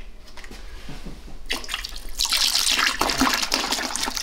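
Chilled water pouring from a plastic gallon jug into a plastic fermenting bucket of wort, splashing as it lands; the pour starts about a second and a half in and grows louder. The cold water is being added to cool the hot wort.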